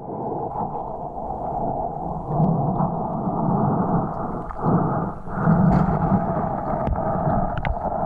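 Water heard through a microphone held underwater: a steady, muffled rushing with no high sounds, swelling louder a few times.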